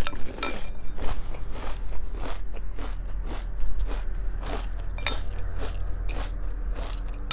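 Close-up chewing of crunchy cereal in milk: soft, even crunches about two or three times a second.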